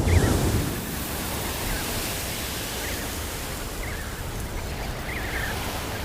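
Antarctic wind blowing steadily, with a strong low gust at the start. Faint, short, high-pitched calls of penguin chicks come through the wind about five times.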